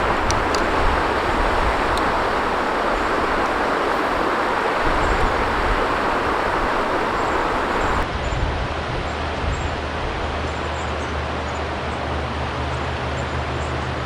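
Rushing river current, a steady loud wash of water. About eight seconds in the sound changes abruptly, with less hiss and a low steady rumble underneath.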